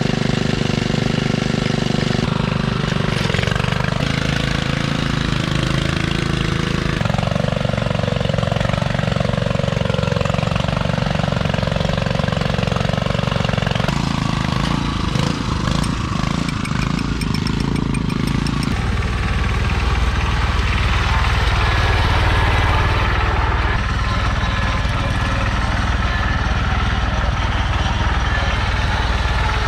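Small garden tractor engines running steadily under load while plowing, heard in a series of short clips. First a David Bradley walk-behind tractor, then a John Deere 140 garden tractor. The engine note changes abruptly several times where one clip gives way to the next.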